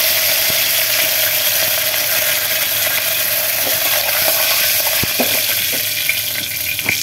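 Mustard seeds and curry leaves sizzling in hot oil in an aluminium pressure cooker, a steady hiss with a pop now and then. It cuts off suddenly at the very end.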